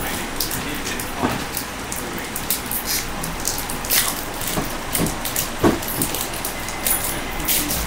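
Crinkling and rustling of a trading card pack being opened and its cards handled: a steady run of small crackles with a few sharper snaps.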